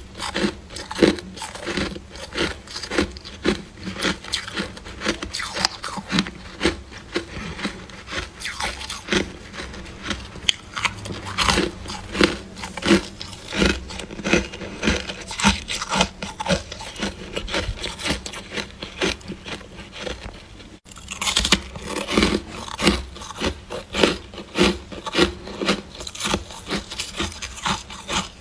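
Soft freezer frost crunching in a steady rhythm, about one or two crunches a second, with a brief break about three quarters of the way through.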